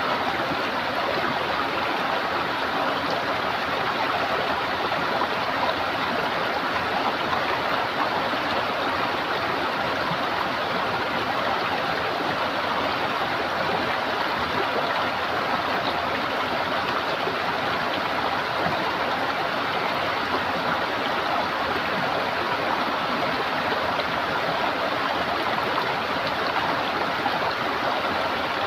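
Running water gurgling steadily, like a stream flowing over rocks.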